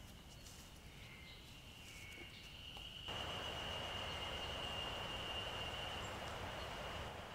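Summer forest ambience: a steady high insect drone with a few short bird chirps. About three seconds in it turns suddenly louder, the drone brightening over a broad hiss, and it then holds steady.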